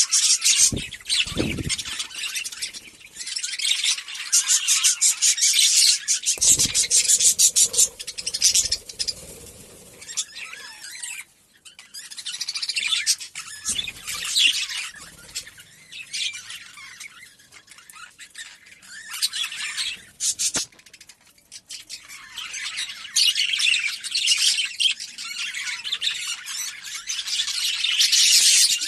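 Many budgerigars chattering and chirping together in a busy, overlapping stream of high warbles and rapid trills, quieter in the middle stretch, with a few low bumps.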